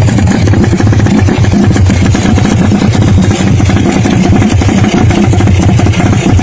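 Racing motorcycle engine running hard with a rough, rapid rattle, steady and loud.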